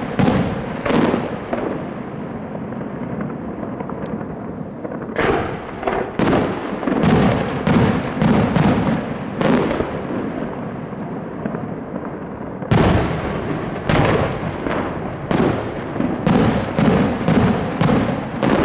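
Aerial fireworks display: shell bursts go off one after another, each a sharp bang trailed by a rolling echo. After a lull of a few seconds near the start, the bursts come thick and fast again.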